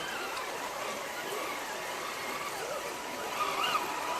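Running stream water, with the whine of an RC scale crawler's small electric motor rising and falling as it drives.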